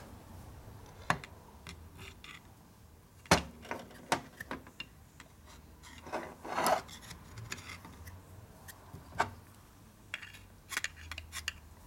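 Screwdriver tip clicking and scraping inside the cast kicker cover of a Harley-Davidson 4-speed transmission as a new O-ring is pushed down into the kicker-shaft bore between the two bushings. Scattered light taps, with one sharper knock about three seconds in, a brief rub a little past halfway, and a run of small clicks near the end.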